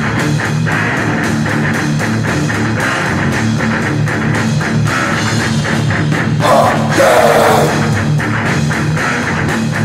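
Heavy rock instrumental passage: guitars and a drum kit playing a driving beat. A wavering held note comes in about six and a half seconds in, the loudest part.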